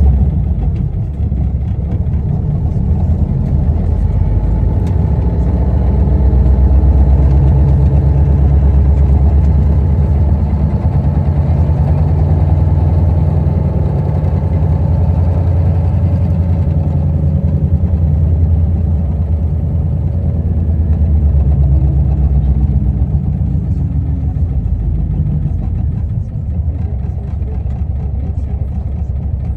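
Isuzu Erga KL-LV280L1 city bus running on its route: a steady low diesel-engine drone whose pitch drifts down and up as the bus slows and pulls away again.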